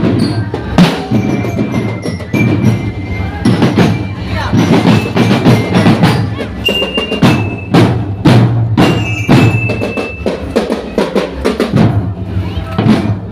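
Loud percussive music with heavy drum hits and deep bass, played through a large carnival sound system.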